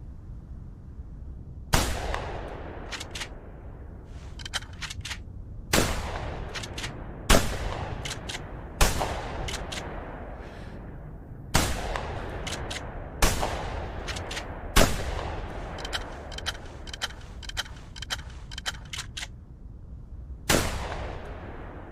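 Remington 870 12-gauge pump-action shotgun firing eight shots, each sharp blast trailing off in an echo, most about a second and a half apart with a longer pause before the last. Between shots come quick clusters of metallic clicks and clacks from the action being worked.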